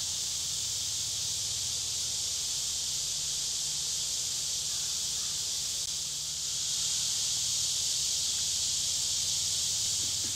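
Steady, high-pitched insect chorus from the surrounding brush, holding even throughout, over a faint low hum.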